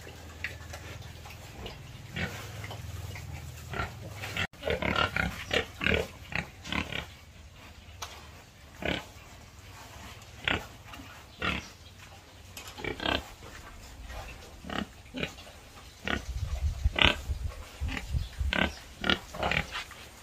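Domestic pigs grunting: short grunts, crowded together from about five seconds in and again near the end.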